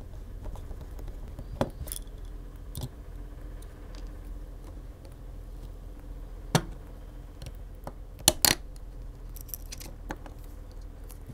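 Small sharp clicks and taps of a precision screwdriver and a plastic pry tool against the screws and plastic housing of a Samsung Galaxy S24's lower loudspeaker module as it is unscrewed and pried out. The loudest click comes about two-thirds through, then a quick double click, over a faint steady low hum.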